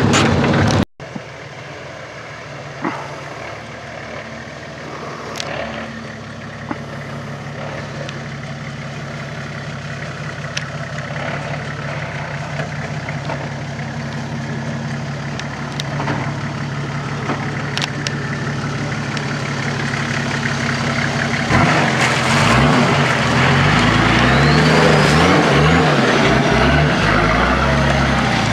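Nissan GQ Patrol 4WD's engine running steadily at low revs as it crawls down a steep track, then revving up and down repeatedly from about three-quarters of the way through as it drives into deep mud.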